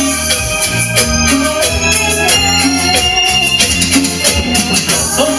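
Live band music: electronic keyboard in an organ sound holding chords over bass and drums, with a shaken rattle or tambourine keeping a steady beat.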